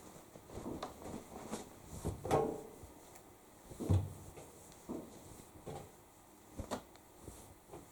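Laundry being loaded by hand into the drum of a Hoover Link X Care condenser dryer: irregular soft thuds and rustling of fabric with a few sharper knocks, the heaviest thud about four seconds in.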